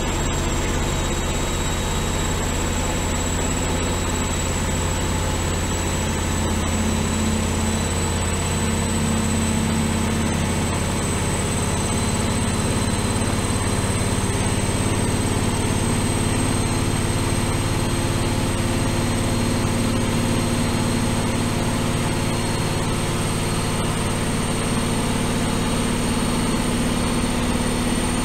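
Bauknecht WAE8575 front-loading washing machine in its final high-speed spin toward 1200 rpm. It makes a steady low drum hum with a high motor whine that creeps slowly upward in pitch.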